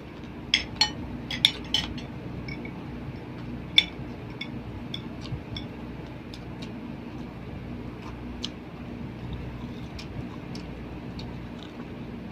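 Metal cutlery clinking against plates and bowls during a meal: a quick cluster of sharp clinks in the first two seconds, the loudest single clink near four seconds, then scattered lighter ones. A steady low hum runs underneath.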